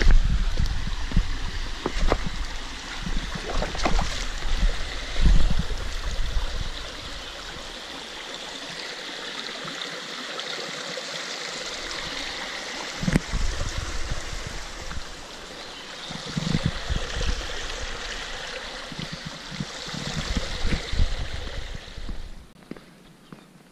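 Creek water rushing steadily over rocks, with low thumps of footsteps and camera handling, heaviest in the first few seconds. The water sound cuts off near the end.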